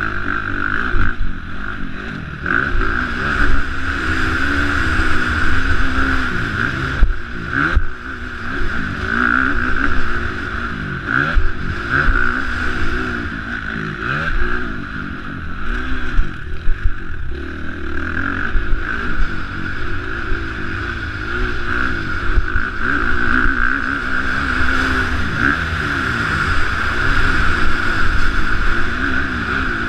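KTM 350 SX-F single-cylinder four-stroke motocross engine under hard riding, its note rising and falling over and over as the throttle is opened and closed. A few short knocks come about seven to eight seconds in.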